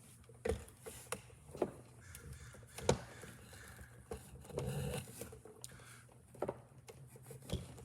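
Half-inch drain tubing being worked by hand onto a fitting: scattered sharp knocks and taps, with a rubbing, squeaky scrape about halfway through.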